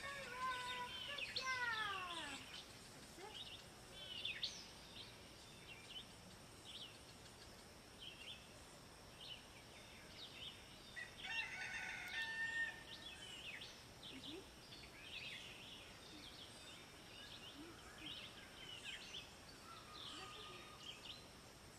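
Birds chirping and calling throughout. A louder, longer call with several pitches at once slides downward in the first couple of seconds, and another comes about halfway through.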